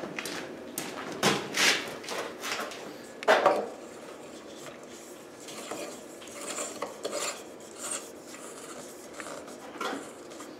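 A light bulb being screwed by hand into a plastic ceiling lampholder: faint scraping and small clicks of the bulb's threaded base turning in the socket, with a few sharper knocks in the first seconds, the loudest about three seconds in.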